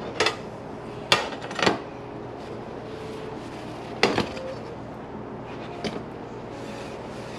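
A metal donut pan clanking against a ceramic plate as it is turned over and knocked to release baked donuts. Three sharp knocks come in the first two seconds, a loud one about four seconds in, and a lighter one near six seconds.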